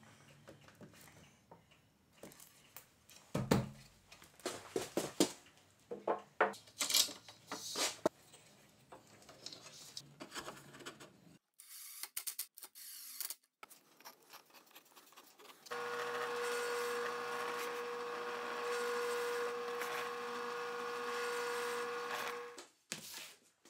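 A series of knocks and taps as wooden bench parts are handled and fitted, with one heavier thump. Next comes a brief burst from a cordless impact driver driving a pocket-hole screw. Then a benchtop drill press runs with a steady hum and whine for about seven seconds as it drills a hole in a white oak seat slat, stopping suddenly near the end.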